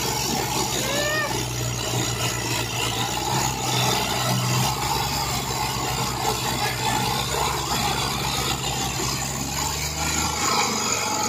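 Diesel tractor engines running steadily under load as a tractor strains to tow another, brick-laden tractor and trolley stuck in mud; the low engine drone drops away about ten seconds in.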